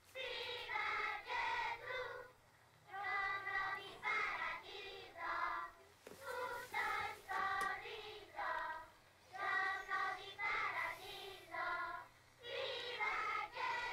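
A group of children singing together, high voices in sung phrases with short breaks about every three seconds.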